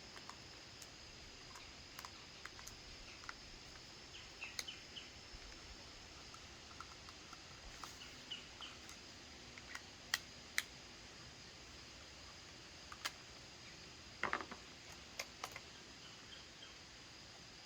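Sparse light clicks and taps of a 2.5 mm hex key and small metal parts as screws are worked out of an HDX T4E .68 calibre less-lethal launcher, over faint background hiss. The sharpest clicks come as a pair about ten seconds in and a short cluster about fourteen seconds in.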